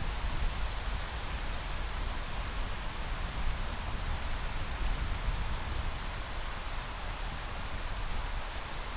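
Steady rushing of river water, an even hiss with a low rumble underneath.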